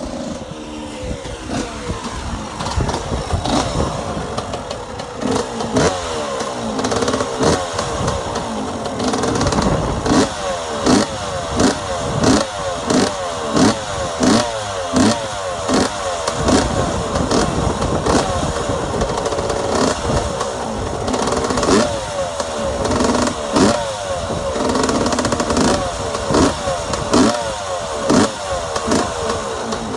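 1996 KTM 125 two-stroke single-cylinder engine with an FMF exhaust, running and revved in quick repeated throttle blips, about two a second, with steadier running in between.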